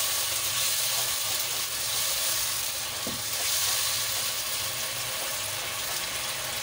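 Tomato-onion curry masala sizzling steadily in oil in a non-stick wok, with a spatula stirring fried koftas through the bubbling gravy.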